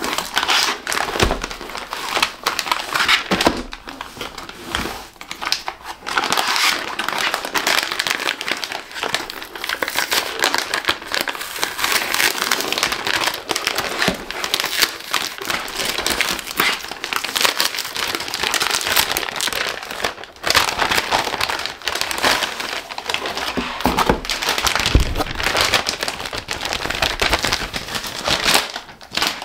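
Crinkling and rustling of a metallic plastic mailer bag as hands handle it and open it, close up, with frequent short crackles and taps.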